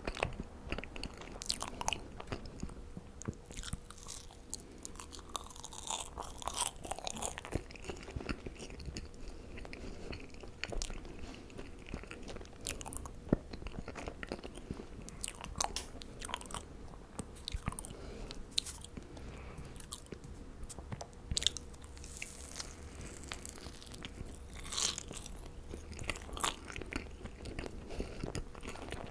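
Marshmallows being bitten and chewed close to the microphone: a steady run of short, crisp mouth clicks and crunches.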